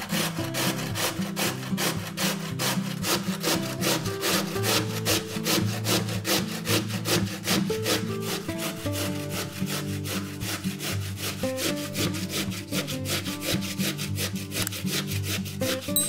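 Raw potato being grated on a stainless steel box grater: quick, regular rasping strokes. Quieter guitar music plays underneath.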